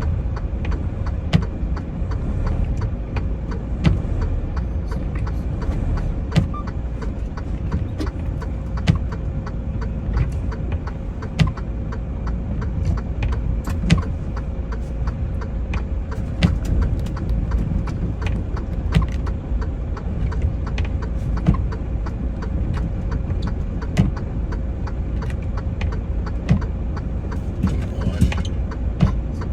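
Semi-truck cab interior: steady low engine and road rumble with a faint steady hum, and a sharp click about every two and a half seconds.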